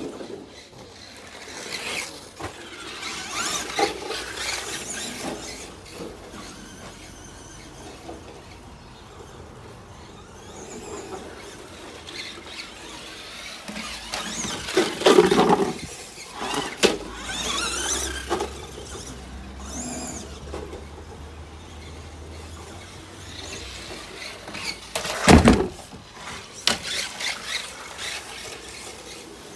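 Two Tamiya electric RC cars with stock brushed 540 motors being driven hard, their motors and gears whining in bursts that rise and fall with the throttle. Two loud knocks stand out, about halfway through and near the end.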